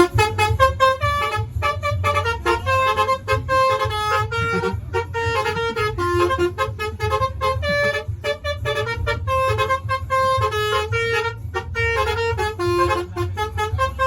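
Basuri 'telolet' musical air horn on a Mercedes-Benz OH 1626 NG bus playing a fast tune of short, stepped notes. A steady low engine rumble runs underneath.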